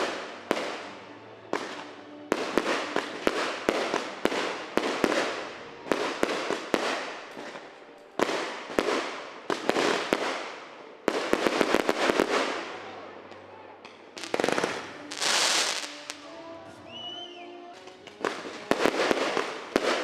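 Firecrackers and fireworks going off: sharp bangs in quick clusters, each trailing off into crackle, with a long hiss about three quarters of the way through and a short whistle just after.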